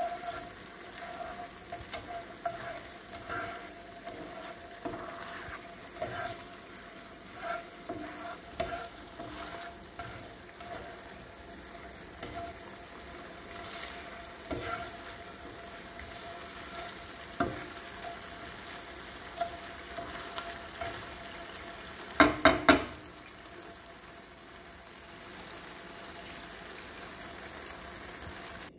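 Carrot slices and gravy sizzling in a non-stick frying pan, stirred and scraped with a spatula in strokes about once a second. A quick run of loud knocks comes about three-quarters through, then the sizzling goes on steadily.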